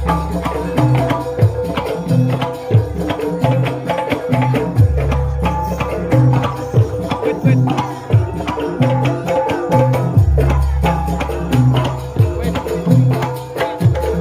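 Jaranan music amplified through a sound system: kendang hand drums keep a fast, steady rhythm over a held melodic tone, with long, deep low notes coming in every few seconds.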